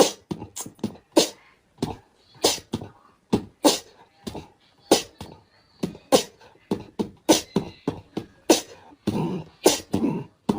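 A puppy giving a run of short, sharp yaps at an uneven pace, with brief silent gaps between them.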